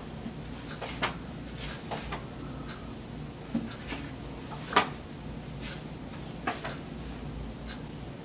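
Pages of a paperback textbook being flipped and handled on a bed: a string of short papery rustles and flicks, the loudest about five seconds in.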